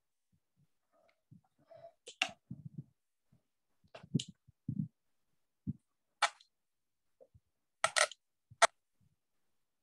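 Scattered clicks and knocks: about five sharp ones spread irregularly, with a few duller thuds between them, heard over a video-call line.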